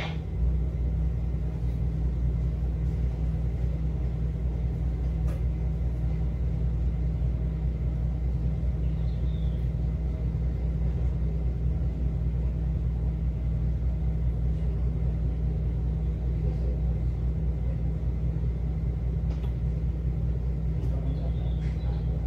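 Engines of the car ferry KMP Pulo Tello running with a steady low drone, heard from the deck.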